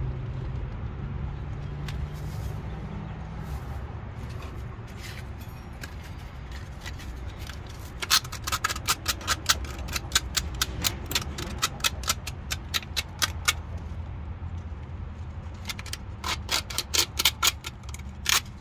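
Two runs of rapid, evenly spaced sharp clicks, about five a second, from hand tools working on a brake caliper: one starts about eight seconds in and lasts several seconds, a shorter one comes near the end. A steady low hum runs underneath.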